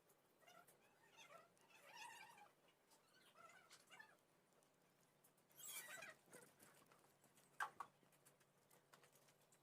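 Faint animal cries: several short calls that rise and fall in pitch in the first four seconds. A brief rustling noise follows about six seconds in, then a sharp tap just before eight seconds.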